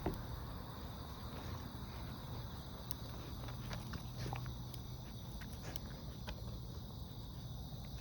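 Steady high-pitched chirring of insects, with scattered light rustles and steps of movement in grass.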